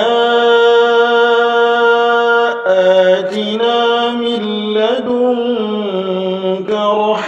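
Quran recitation in a melodic tajweed style: a man's voice draws out long held notes that step to new pitches a few times, with no break for breath.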